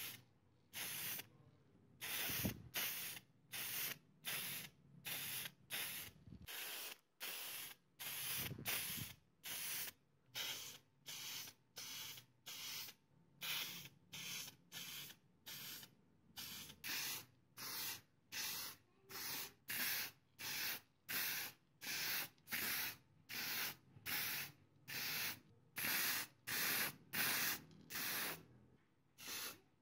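Aerosol spray-paint can sprayed in short hissing bursts, about one and a half a second, with a couple of brief pauses.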